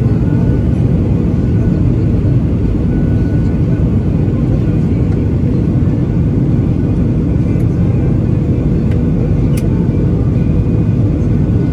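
Steady low rumble of a Boeing 737-800's CFM56-7B engines and rushing airflow, heard from inside the passenger cabin over the wing during the descent to land. A faint steady hum runs beneath it, and a single sharp click comes near the end.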